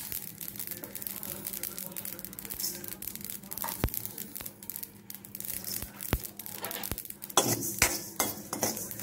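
Mustard and fenugreek seeds dry-roasting in a metal kadai, crackling faintly with a few sharp pops. From about seven seconds in, a spatula stirs and scrapes the seeds against the pan in quick strokes, two or three a second.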